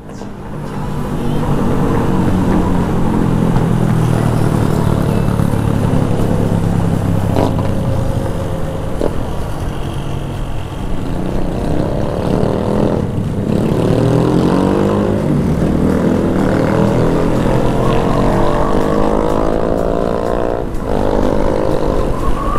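Yamaha XJ6 inline-four motorcycle engine heard from the rider's seat, pulling steadily under way. Twice, about halfway and near the end, the note breaks briefly for an upshift and then climbs again as the bike accelerates.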